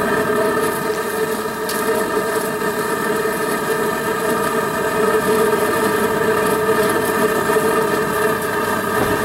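A steady, engine-like mechanical drone holding one constant pitch.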